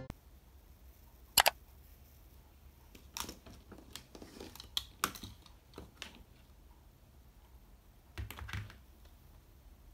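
Faint, scattered clicks and taps of small objects handled on a desk, a watch and pens picked up and set down. One sharp click comes about a second and a half in, a loose run of taps follows, and a short cluster comes near the end.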